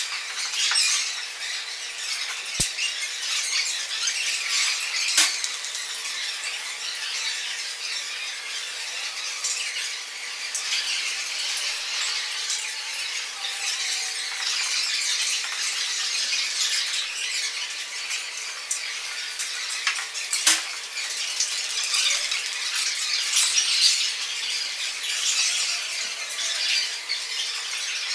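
Fragments of broken drinking glass being handled and worked by hand, a steady gritty scratching and fine clinking of glass on glass. There are sharper clicks about five seconds in and again about twenty seconds in.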